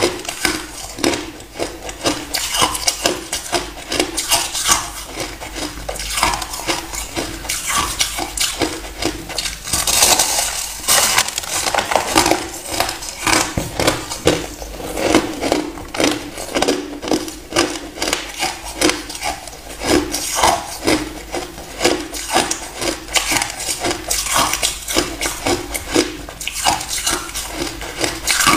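A person biting and chewing a chunk of granular, frosty ice: a dense crackle of many small crunches.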